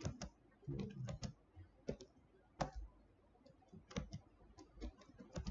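Computer keyboard keys clicking at irregular intervals as numbers are typed into a running console program.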